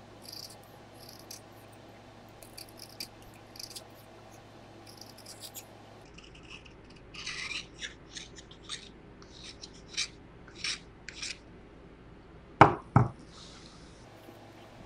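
An X-acto knife blade shaves the wood off a graphite pencil in quick, short scraping strokes, cutting the wood back to expose a long length of lead. The strokes grow louder about halfway through. Near the end come two sharp knocks as the knife is laid down on the desk.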